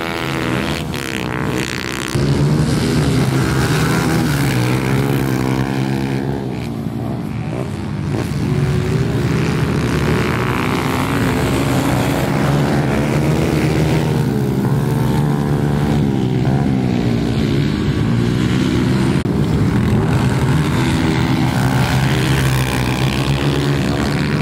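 Small pit bike engines revving up and falling back, rising and dropping in pitch every second or two as bikes ride round a dirt track.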